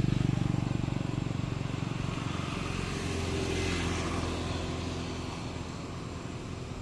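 A motor vehicle's engine running with a steady low hum that slowly fades away.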